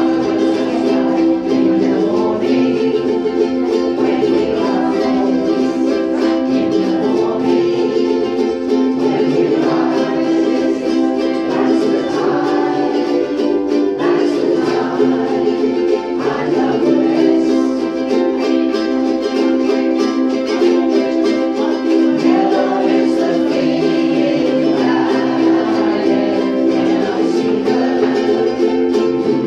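A group of ukuleles strummed together, playing a song with a steady strummed rhythm of chords.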